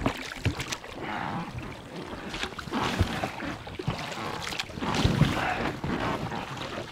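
A small boat being worked through fallen trees: water splashing and sloshing around the hull, with scattered knocks and thumps against the boat.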